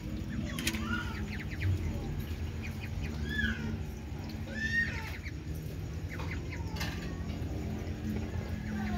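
Ducklings giving a few short peeping calls, each a quick note that rises and falls, scattered over several seconds, over a steady low background hum.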